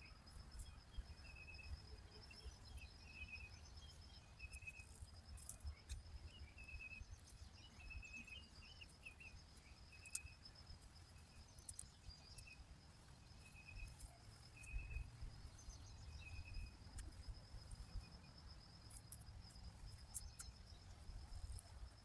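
Insects trilling: a steady, high, pulsing trill, with short chirps repeated on and off beneath it. A few faint clicks and a low rumble come from nearby handling.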